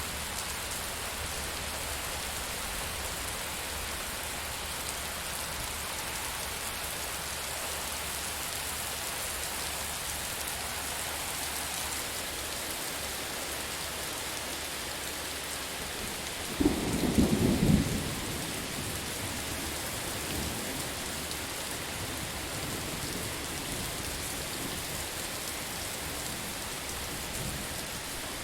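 Steady heavy rain with a sudden loud thunder crack and rumble a little past halfway, lasting about a second and a half before fading back into the rain.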